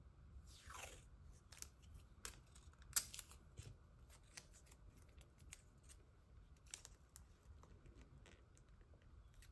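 Washi tape being peeled off its roll and torn into short pieces by hand: a brief rasp falling in pitch about half a second in, then faint crisp ticks and snaps as the pieces are ripped and pressed onto the paper, the sharpest about three seconds in.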